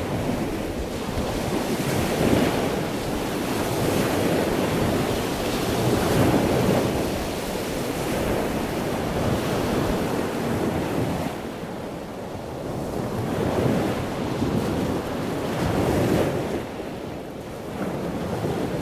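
Ocean surf breaking on a sandy beach, the wash swelling and easing every few seconds, with wind buffeting the microphone.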